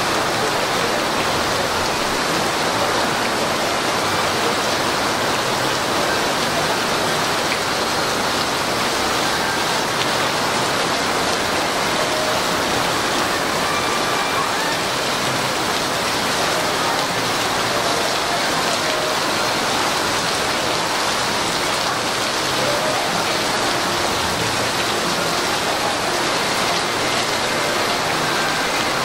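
Torrential downpour falling on paving and flooded pavement: a steady, unbroken hiss of heavy rain.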